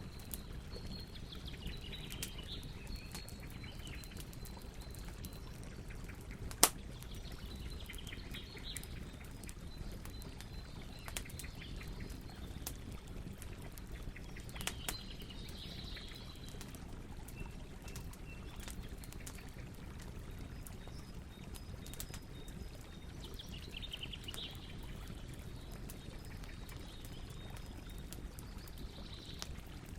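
Campfire burning with a steady low rush and scattered crackles, one sharp loud pop about a third of the way in. Birds chirp and call several times in the background.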